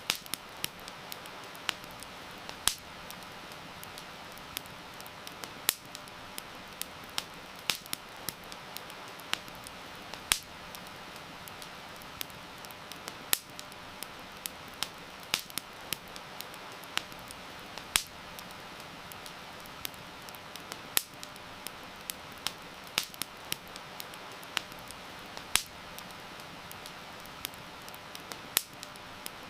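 Campfire crackling, with frequent irregular sharp pops and snaps, over a steady hiss of heavy rain.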